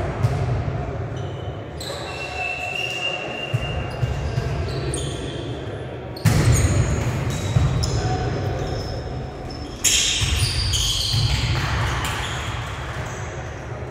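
Indoor volleyball rally in a large echoing gym: the ball is struck sharply a few times, with players' voices calling out, and loud jumps about six and ten seconds in.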